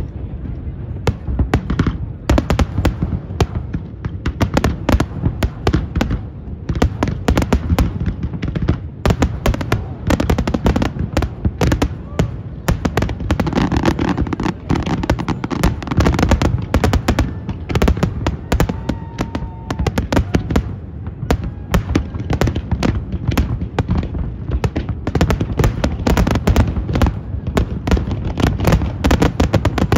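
Aerial fireworks shells bursting in a dense, continuous barrage of overlapping bangs and crackles.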